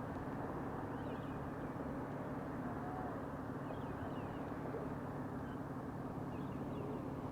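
Steady wash of waves breaking on a beach under a low steady hum, with faint high chirps every second or two.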